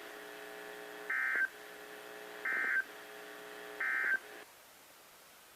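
NOAA Weather Radio SAME end-of-message data tones from a Sangean CL-100 weather radio's speaker: three short, harsh digital bursts about a second and a half apart, marking the end of the weekly test. A faint steady hum under them cuts off just after the last burst.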